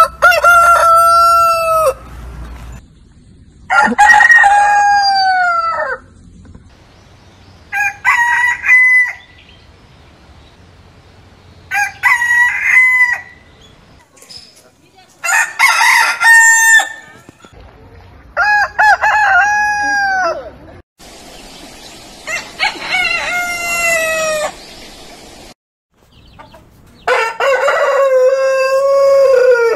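Roosters crowing one after another, about eight crows in all, each a cock-a-doodle-doo of one to three seconds with short gaps between. The crows come from several different birds and differ in pitch, the last one the deepest.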